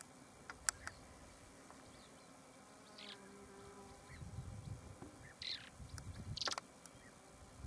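Heine's Short-toed Lark giving a few short, dry, buzzy calls, scattered and spaced apart, the clearest two in the second half. A low rumble runs under the calls in the second half.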